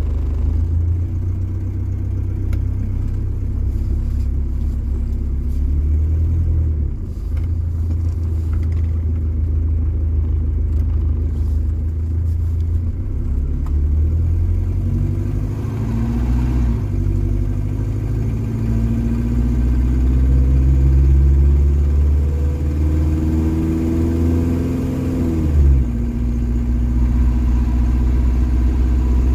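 Mercedes OM616 four-cylinder diesel engine running under load through a new exhaust with a Saab muffler, a steady low rumble whose pitch rises as the car accelerates and drops sharply about three-quarters of the way through.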